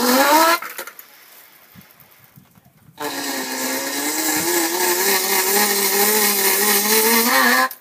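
Small handheld electric power tool running with a hissy grinding edge as its spinning tip is pressed into material to friction-burn through it. It whines up to speed and cuts off within the first second, then about three seconds in runs steadily for nearly five seconds and stops abruptly near the end.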